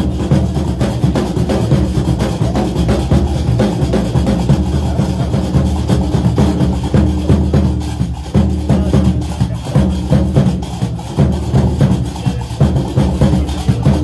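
Loud music driven by drums and percussion, a steady stream of quick strikes over a heavy low beat.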